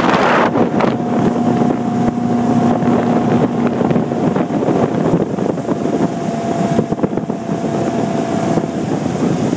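Old ski boat's engine running steadily under way, with a steady hum through the noise of the moving boat and wind buffeting the microphone.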